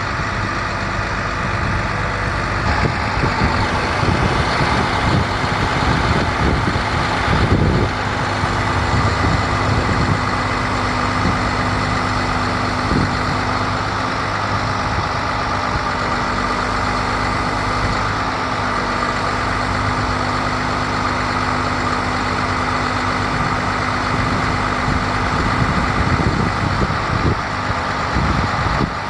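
Diesel engine of an International 4300 bucket truck running steadily at idle, with a steady whine above the engine note.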